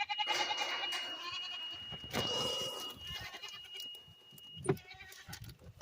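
Goats bleating, with two wavering bleats in the first half.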